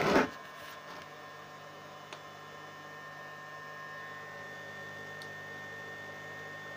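Steady electrical hum with a thin high whine from an inverter-powered immersion heater heating water nearly to the boil. A brief loud rustle of handling noise comes right at the start.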